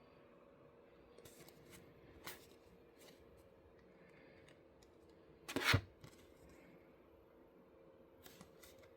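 Faint handling noise from an UNO card game's box, cards and wrapping: scattered light clicks and rustles, with one louder short scrape about halfway through, over a faint steady hum.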